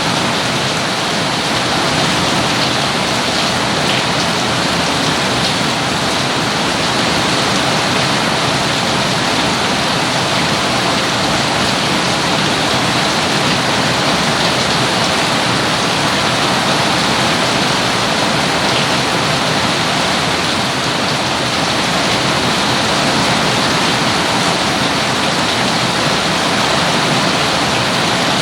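Rain falling steadily in an even, unbroken hiss.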